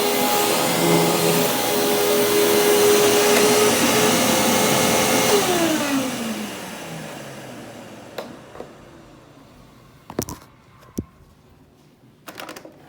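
Hoover WindTunnel Supreme upright vacuum running steadily with a freshly cleaned filter and new brushroll. It is switched off about five seconds in, and its motor whine falls in pitch as it winds down. A few sharp clicks and knocks follow near the end.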